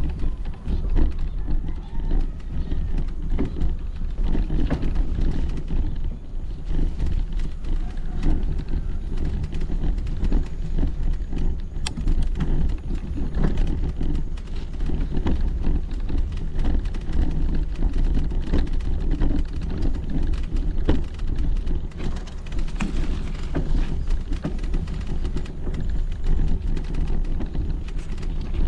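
A bicycle ridden over a rough dirt track, with frequent small rattles and knocks from the bike and steady wind rumble on the action camera's microphone.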